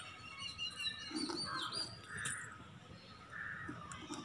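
Birds chirping with short, high calls, one with a falling note about a second and a half in. Under them, soft scraping as a steel spoon scoops roasted semolina out of a small clay pot.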